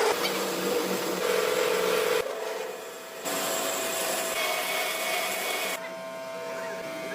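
Metal being machined and worked by hand, a scraping, rasping noise with steady tones running through it, changing abruptly about two, three and six seconds in as one short clip cuts to the next.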